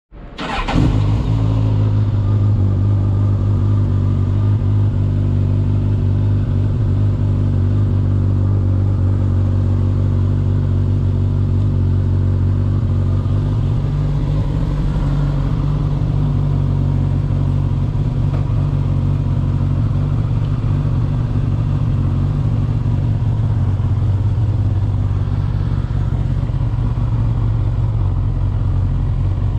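Suzuki GSX-S1000's inline-four engine idling steadily while the motorcycle stands still.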